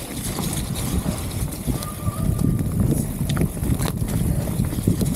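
Nukeproof Mega mountain bike rolling fast down a wet dirt trail: a steady rumble of tyres over the ground with wind buffeting the microphone, and a few sharp clicks and knocks from the bike over bumps in the second half.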